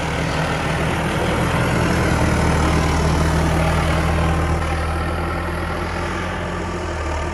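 Massey Ferguson tractor's diesel engine running steadily with a deep hum as the tractor moves through deep snow.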